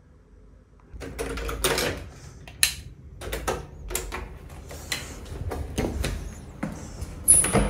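Irregular clicks, knocks and rustling of a room door's round knob and latch being handled and the door worked, starting about a second in, with one sharper click a little after that.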